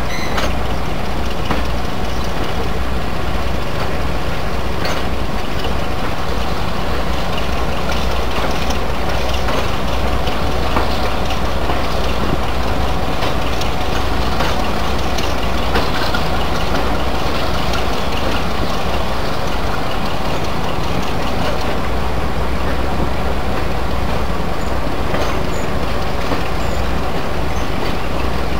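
Diesel locomotive engines idling steadily close by, with a constant low hum, while a second diesel locomotive draws slowly up on the next track. A few short clicks sound here and there.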